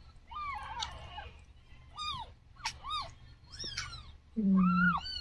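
Newborn kittens mewing: about five short, thin mews that rise and fall in pitch. The last, about four and a half seconds in, is the loudest and has a deeper note under it.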